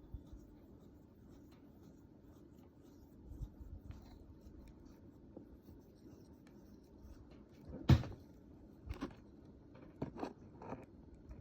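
Quiet room tone with scattered light clicks and taps, the loudest a sharp knock about eight seconds in, followed by a few more clicks.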